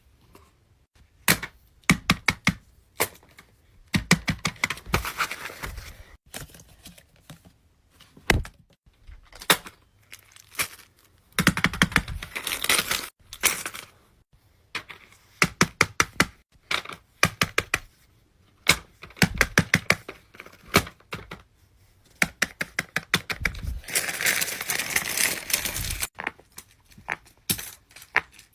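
Small plastic fidget toys and their wrapping being handled: runs of rapid sharp clicks alternating with bursts of crinkling and rustling.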